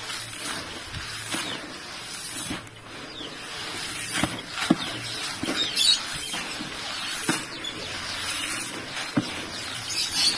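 Dry bird-seed mix of cracked corn, sunflower seeds and canary seed being stirred by hand in a plastic tub: the grains rustle and patter continuously, with many small clicks.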